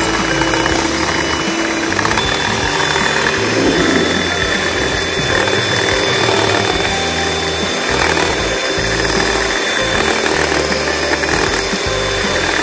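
Electric hand mixer running steadily, its beaters whipping a cream and condensed-milk mixture in a glass bowl.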